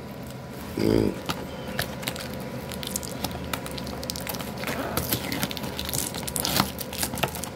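Cardboard speaker box being opened by hand: the flap and lid scrape and rustle, with scattered sharp crackles and clicks.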